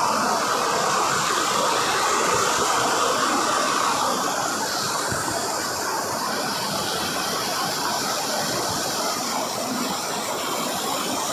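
Small waterfall splashing onto rocks and a shallow stream rushing over stones: a steady rush of falling and flowing water.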